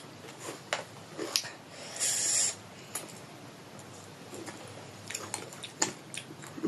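Close-up eating sounds of fried pork: wet chewing, lip smacks and small clicks, with a short hiss about two seconds in.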